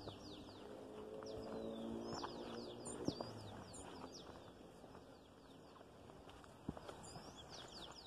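Several small birds chirping, with many quick falling calls throughout, over a few footsteps on a dirt path. A low held tone sounds from about half a second to two and a half seconds in.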